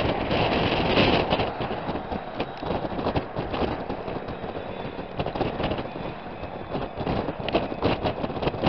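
Train running on the rails, its wheels clacking irregularly over rail joints under a steady rumble.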